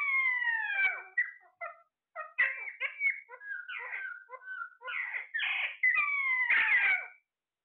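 A pet parrot chattering with quick, squeaky, giggle-like calls, broken by long falling squawks: one at the start and another about six seconds in.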